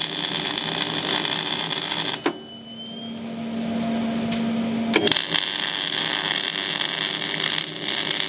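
MIG welding arc crackling on the steel hull plate in two runs: the first stops about two seconds in, and the second starts about five seconds in and goes on to the end. A steady low hum is heard in the pause between the runs.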